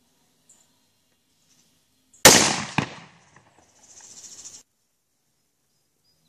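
An explosion: one loud blast about two seconds in, a second sharp crack about half a second later, then a fading rumble. A quieter noise follows around four seconds in and stops abruptly.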